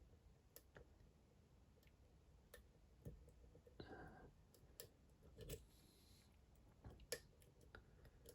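Faint, irregular clicks and taps of lock picks working the pins of a Dom IX Twinstar cylinder, a lock with two rows of pins. The sharpest click comes about seven seconds in.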